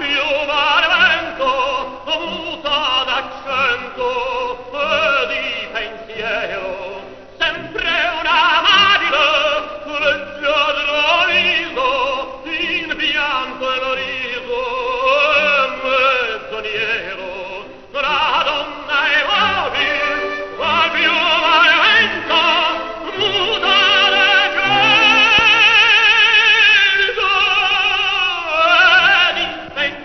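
Operatic tenor singing an aria, phrase after phrase, ending on a long sustained note with wide vibrato near the end.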